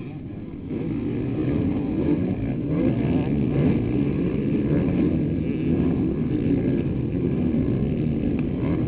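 A pack of motocross bikes, a mix of 250 two-strokes and 450 four-strokes, revving hard together as they race over a jump, many engines overlapping. It gets louder about a second in as the pack comes closer.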